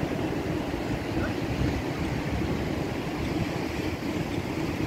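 Ocean surf breaking, with wind buffeting the microphone: a steady, uneven low rumble.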